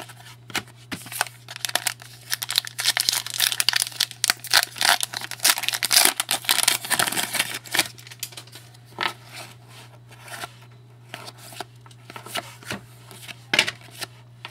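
Hockey card pack wrapper being torn open and crinkled while the cards are handled: dense, irregular crackling for the first several seconds, then only scattered crinkles.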